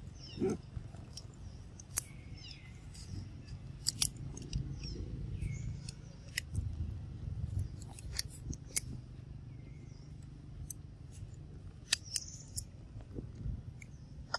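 Dry leaf litter crackling in sharp, irregular clicks and ticks as a newborn macaque squirms on the ground, with a few short high chirps over a low rumble.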